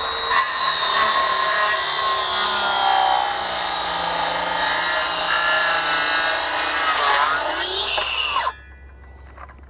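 Kobalt 24-volt 6-1/2-inch cordless circular saw making a 45-degree bevel cross cut through a board, its motor whine sinking in pitch under the load of the cut. Near the end the pitch dips and climbs back as the blade clears the wood, then the saw stops abruptly under its electronic brake.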